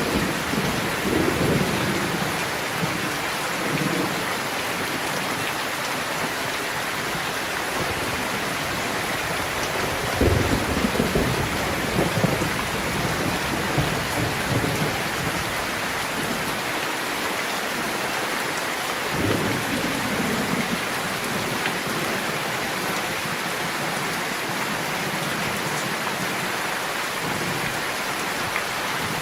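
Steady rain falling, with low rolls of thunder rumbling at the start, again about a third of the way in, and once more about two-thirds through.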